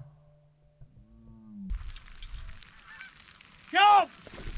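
Canada geese honking: a few faint honks, then one loud honk near the end.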